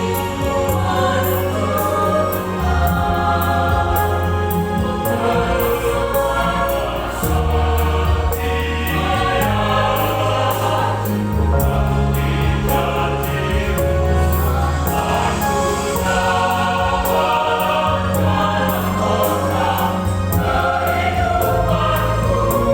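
Church choir singing gospel music over instrumental accompaniment with a steady beat.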